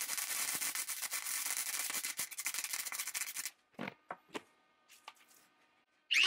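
Stick-welding arc crackling steadily, then cutting off about three and a half seconds in, followed by a few faint clicks. Right at the end a small rotary tool starts up with a rising whine.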